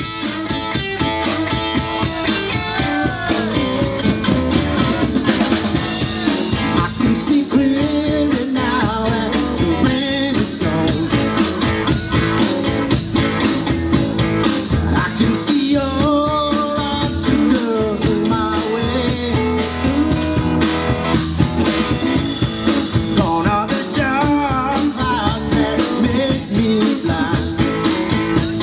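Live blues-rock band playing: electric guitars over a drum kit keeping a steady beat, with a lead line that bends and wavers in pitch.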